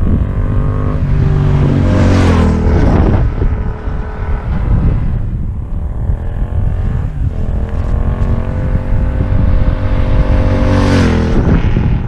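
Yamaha MT-07's 689 cc parallel-twin through an Arrow Street Thunder exhaust, accelerating hard past the listener twice, about two seconds in and again near the end. The engine note climbs in pitch as the bike approaches and drops away as it goes by.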